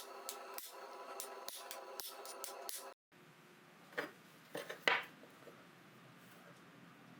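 Hand hammer striking hot steel on the anvil about twice a second, the anvil ringing on between blows; the sound cuts off abruptly about three seconds in. Then a few light metallic clinks against quiet room tone.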